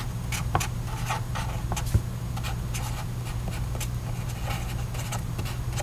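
Pen writing on paper: a series of short scratchy strokes and taps in the first two seconds, over a steady low electrical hum.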